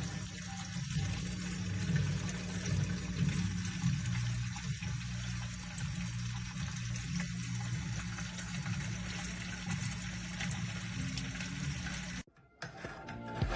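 Water running steadily from a hose into an aquarium as the tank is refilled, a continuous rush. It cuts off abruptly about a second before the end.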